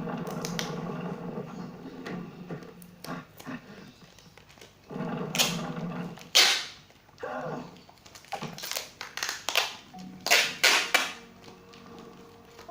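Hand-packing noises: wrapping material being handled and crinkled, with several short, sharp rips or scrapes at irregular moments, the loudest about six and a half seconds in.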